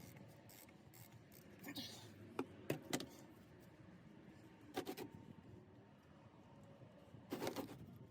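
Hand tools knocking against metal under the truck: a quick run of three sharp metallic clinks about two and a half seconds in, a double clink near five seconds and a louder clatter near the end, as a stuck, over-tightened oil filter is worked on to get it off.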